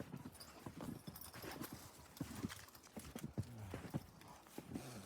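Footsteps crunching through deep snow, an uneven run of short crunches a few per second.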